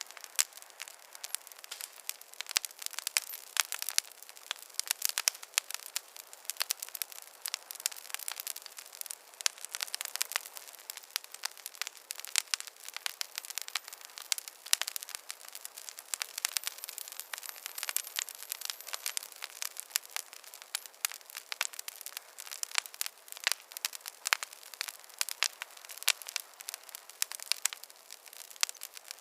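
Fireplace fire crackling steadily: a dense run of small sharp pops and snaps over a faint hiss.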